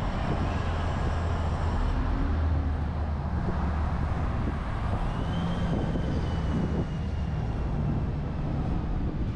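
City street traffic: a steady rumble of motor vehicles passing on the road, with a thin high whine starting about halfway through.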